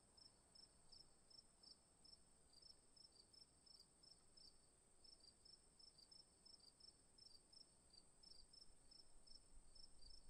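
Very faint insect chirping: short high chirps a few times a second over a steady high-pitched hum.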